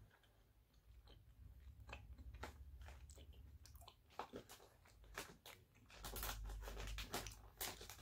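Faint chewing of a sour gummy worm candy, with scattered small mouth clicks. A brief low rumble comes near the end.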